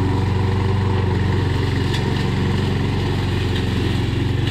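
Lawn mower engine running at a steady speed.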